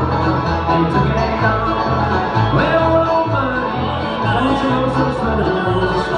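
Bluegrass music: banjo and guitar picking over a steady, evenly stepping bass line.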